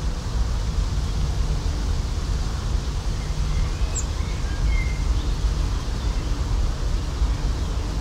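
Outdoor field-recording ambience: a steady low rumble with a few faint, short bird chirps about midway through.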